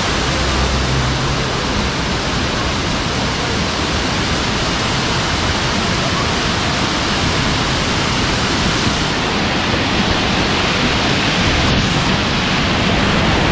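Artificial waterfalls pouring down a rock face right beside the walkway, a loud, steady rush of falling water.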